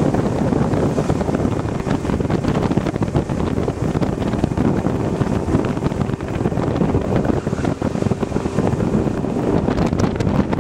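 Wind buffeting the microphone on a bass boat running under power, with the outboard motor running steadily underneath.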